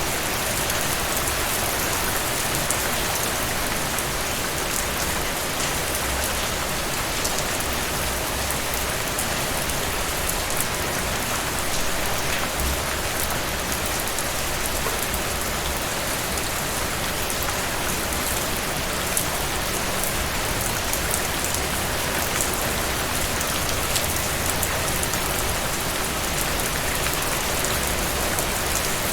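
Steady rain falling, an even patter of drops hitting surfaces, with faint scattered droplet ticks and a low rumble underneath.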